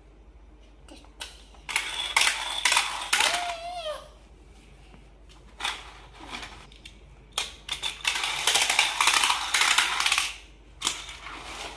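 Small plastic toy cars rattling and clacking down a zigzag plastic ramp track, in two runs of about two seconds each, one starting about two seconds in and one about seven and a half seconds in, with a few single clicks of cars being set down between them.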